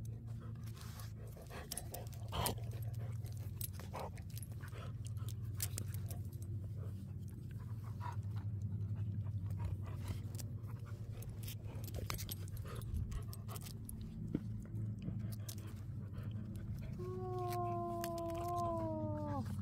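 A dog whines near the end, one drawn-out whine falling slowly in pitch, over a steady low hum and scattered light clicks.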